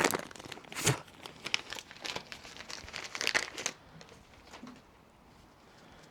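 Plastic packaging crinkling and tearing as a brand-new seal is unwrapped: a run of sharp crackles that stops about three and a half seconds in.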